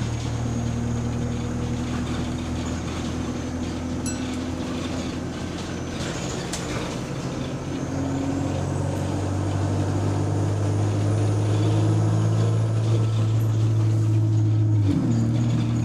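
Bus drivetrain heard from inside the passenger cabin: a steady low engine hum growing louder as the bus pulls away, with a faint high whine climbing in pitch. The engine note drops suddenly near the end.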